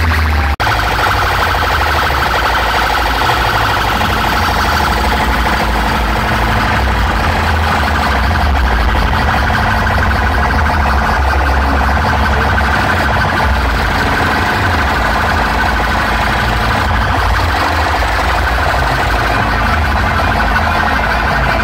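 A truck-mounted DJ sound system played loudly: a warbling, alarm-like electronic tone over a pulsing deep bass. It cuts out for an instant about half a second in.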